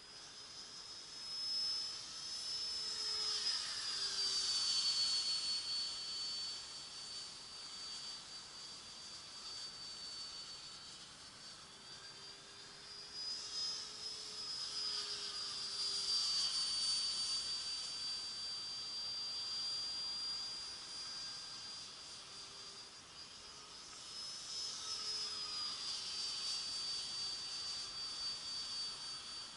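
Small radio-controlled model aircraft's motor whining as it flies past three times. Each time the sound swells and the high whine drops slightly in pitch as the plane goes by.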